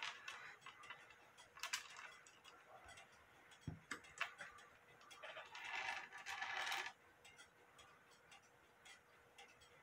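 Faint handling noise from a Dutch wall clock's wooden case being turned over in the hands: scattered knocks and clicks, with one low thump about four seconds in. Light clock ticking runs underneath.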